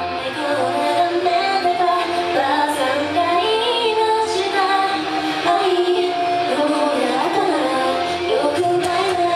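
Female idol vocals singing a J-pop song live into microphones over pop backing music.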